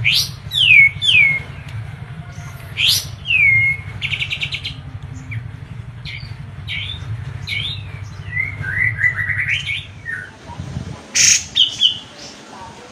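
Sooty-headed bulbul singing: sharp downward-slurred whistles, quick trills and chattering notes, over a steady low hum that stops about ten seconds in.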